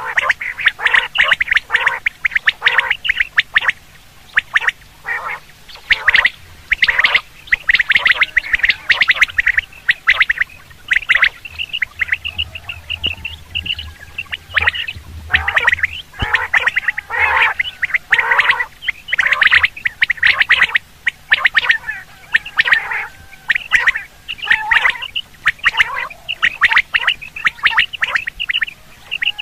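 Common quail calling over and over in quick short notes, with a fast high trill about twelve seconds in.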